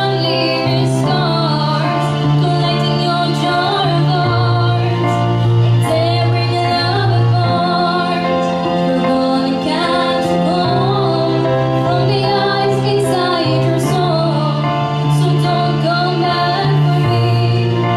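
A young girl singing a song into a microphone over instrumental accompaniment, with long held bass notes that change every few seconds under the wavering sung melody.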